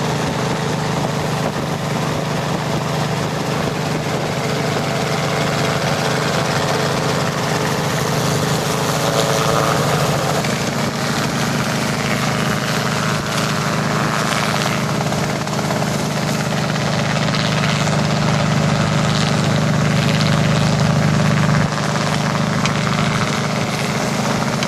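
Helicopter running, a steady rotor and engine drone that thickens a little about halfway through.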